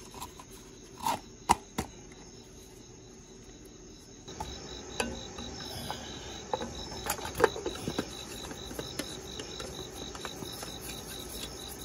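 Oil filter cap on a Toyota Tundra's cartridge oil filter being handled and screwed by hand onto its housing, with a few sharp clicks and knocks. From about four seconds in, a cricket chirps in a fast, steady pulsing trill behind it.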